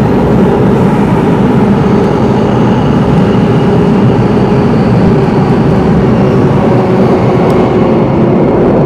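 Steady loud rumble of an MRT train running through a tunnel, heard from inside the carriage, with a faint high whine above it.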